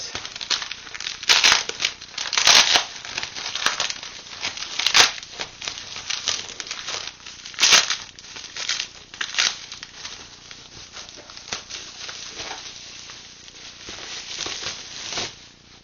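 Plastic bubble wrap crinkling and rustling as it is pulled off a boxed set by hand, with sharper loud crackles every second or two. The handling grows quieter and sparser in the last few seconds.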